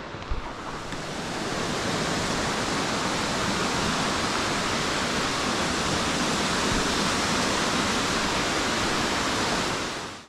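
Rushing water of the Borovniščica stream tumbling through the gorge, a steady full noise that swells over the first two seconds and fades out just before the end.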